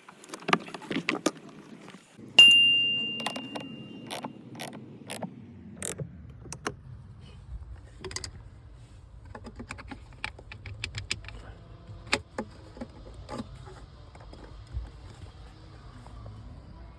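Metal tools and parts clicking and clinking while a car battery is being changed, with one loud metallic clang about two seconds in that rings on for a couple of seconds.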